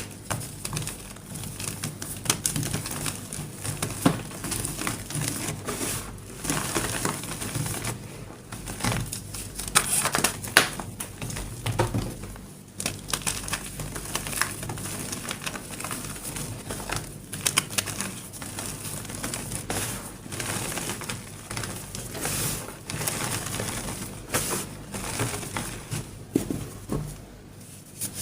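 Gym chalk crushed into crumbs with dry crunches: a dense, irregular run of crisp crackles and small snaps.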